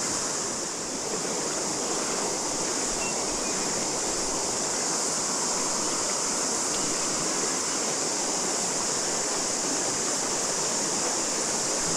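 River water rushing steadily over stones, with a constant high-pitched chorus of cicadas above it.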